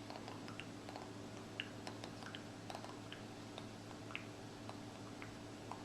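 Faint, irregular little clicks and smacks from a child's mouth, about a dozen scattered over several seconds, over a low steady hum.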